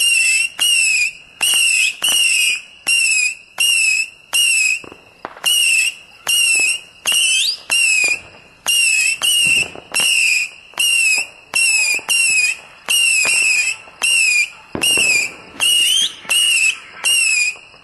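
Fireworks going off, with a couple of dull bangs and a short rising whistle. Over them runs a steady high-pitched chirp, falling in pitch and repeating about one and a half times a second.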